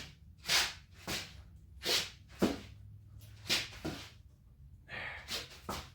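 A man's short, hard breaths, about one every half second to a second, as he strains on a long lever to bend steel tubing around a jig.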